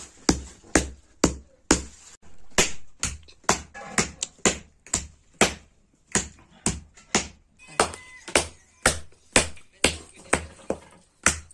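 Wooden mallet pounding raw meat on a stone slab, a steady series of dull, wet blows about two a second, beating the meat into the paste for rista and gushtaba.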